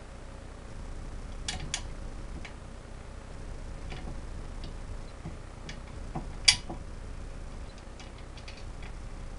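Scattered light metallic clicks and taps of a nut and washers being handled and fitted onto a bolt under a small air compressor's mount. A pair of clicks comes about a second and a half in, and one sharper, louder clink a little after halfway.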